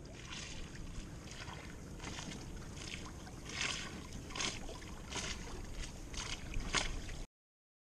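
Water splashing and rushing along a small sailboat's hull under way: a steady rush with irregular sharper splashes every half second or so, cutting off suddenly near the end.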